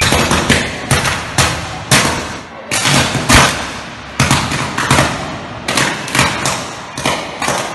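Short-circuiting overhead power cables on a utility pole, burning and arcing in a rapid, irregular string of loud bangs and crackling bursts, about two a second.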